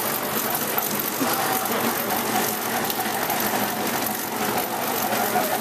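Sugar cane roller press running steadily as a cane stalk is fed between its rollers and crushed for juice, a continuous mechanical drone with a faint steady whine.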